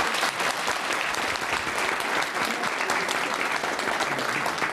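Studio audience applauding steadily: many hands clapping at once.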